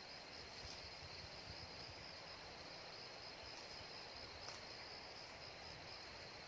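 A faint, steady, high-pitched insect chorus of crickets or cicadas, with a low wind rumble on the microphone beneath it.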